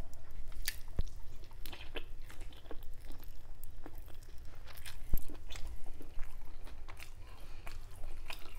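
Close-up chewing and crunching of a cooked sushi roll, with irregular wet clicks and crackles from the mouth. Two sharp low thumps, about a second in and halfway through.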